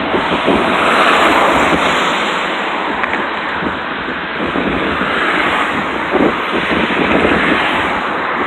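Harvesting machinery running as a loud, dense, steady noise, with wind buffeting the microphone as an uneven low rumble.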